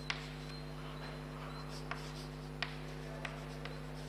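Chalk writing on a chalkboard: a light scratching as the letters are drawn, with about five sharp taps where the chalk strikes the board.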